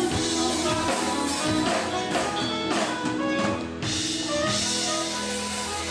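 Live band music: acoustic and electric guitars with a drum kit, playing steadily, with a brief dip in loudness a little before four seconds in.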